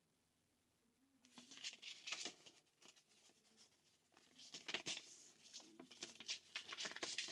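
Paper rustling and crinkling in irregular spurts as an instruction sheet is handled and unfolded, starting about a second in.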